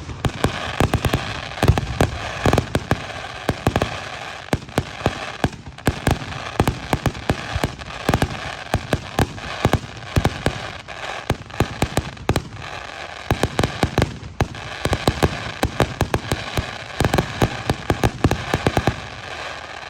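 Aerial fireworks going off in a dense barrage: rapid sharp bangs and crackling, many a second, with brief lulls about six seconds in and again around fourteen seconds.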